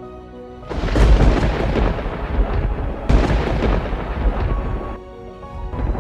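Two loud claps of thunder, each a sudden crash that rumbles on for about two seconds: the first comes about a second in, the second about three seconds in. Background music plays under them.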